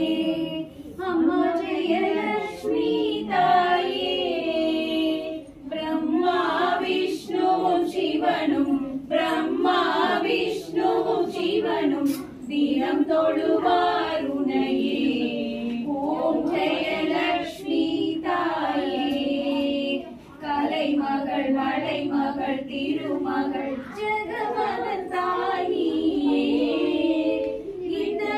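Several women singing a devotional pooja song together, one continuous melodic line without pause.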